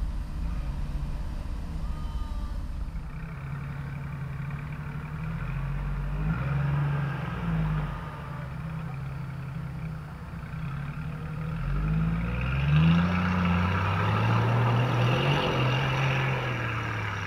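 Jeep engine revving up and down as it crawls off a rock ledge into a river, with water splashing around the tyres, loudest in the last few seconds.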